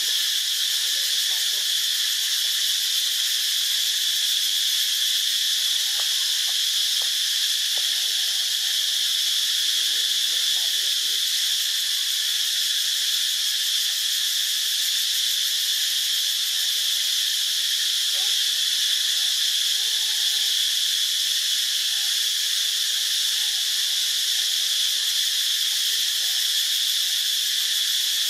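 Steady, high-pitched drone of an insect chorus, unchanging throughout.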